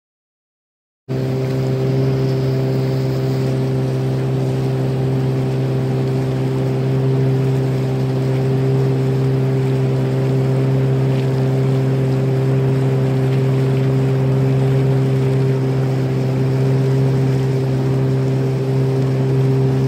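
A small boat's motor running at a steady speed, an even drone that cuts in about a second in and holds without change.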